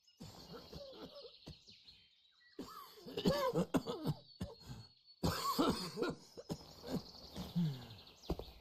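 Character voices from the animated episode playing quietly, in two short stretches of vocal sounds starting about two and a half and five seconds in.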